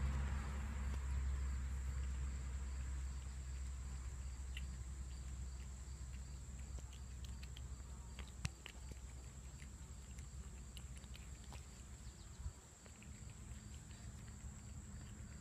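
A cat chewing wet cat food close up: small wet clicks and smacks of its mouth, scattered and irregular, with a sharper click about eight and a half seconds in.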